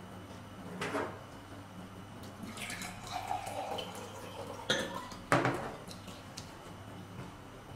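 A dark drink poured from a small white jug into a drinking glass for about two seconds, followed by two sharp knocks of tableware set down on the table, the second the loudest.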